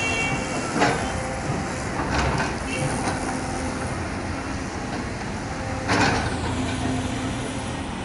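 Steady drone of a diesel excavator working amid road traffic, with two sharp bangs, one about a second in and a louder, longer one about six seconds in.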